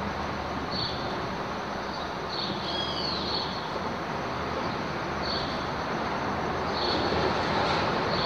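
Steady rumble of road traffic crossing the highway bridge overhead, with short high bird chirps every second or two.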